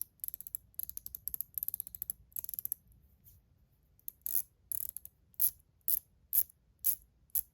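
ACEdc ratchet ring clicking as it is turned, set up with only one spring and one ball, its loosest, lightest-resistance setting. Light, high clicks come in quick runs for about the first three seconds, then after a short pause one at a time, about twice a second.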